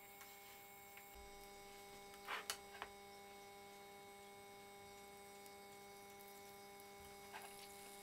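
Faint steady electrical hum from a glass-top electric hob heating a pan of oil. A few light clicks of kitchen tongs come about two and a half seconds in, and a soft tap near the end as raw chicken thigh is laid into the oil without sizzling.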